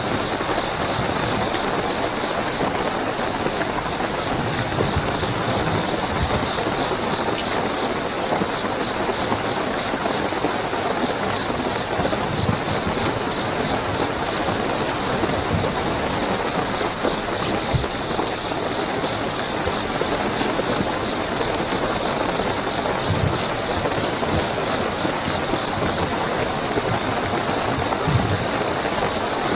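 Steady heavy rainfall with a continuous high-pitched cricket trill over it, and now and then a low thud.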